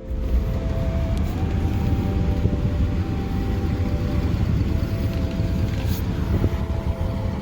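1992 Lexus LS400's V8 running as the car is driven, a steady low rumble of engine and road noise that comes in suddenly at the start.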